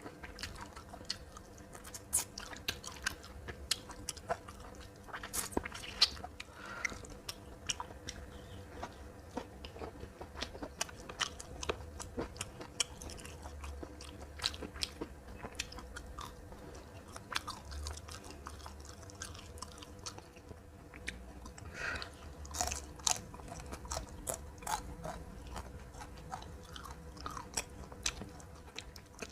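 A person chewing and biting crunchy food, a meal of fried fish, green beans and rice: irregular sharp crunches and mouth clicks, with a run of louder crunches about three-quarters of the way through.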